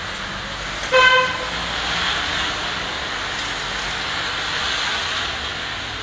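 A car horn gives one short toot about a second in, over a steady hiss of hail falling.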